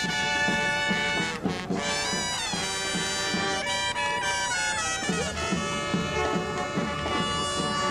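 Upbeat brass-band parade music: trumpets, trombones and sousaphone playing a jazzy tune over a steady beat.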